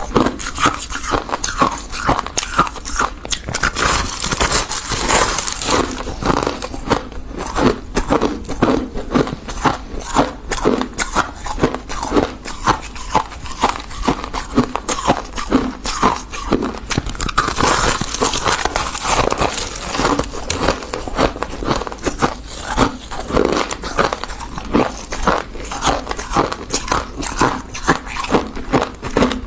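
Biting and chewing a block of refrozen freezer frost: a steady run of crisp, icy crunches, several a second.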